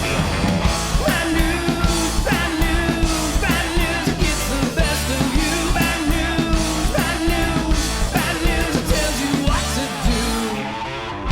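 Rock music with a sung vocal, electric guitar and drums.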